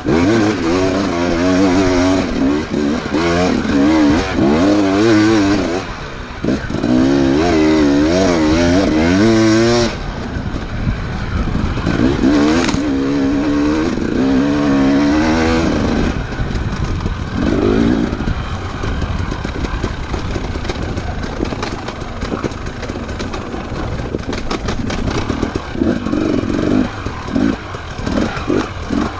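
Enduro motorcycle engines revving hard, the pitch wavering quickly up and down with the throttle through the first half. Later the engine noise turns rougher and quieter, with clattering.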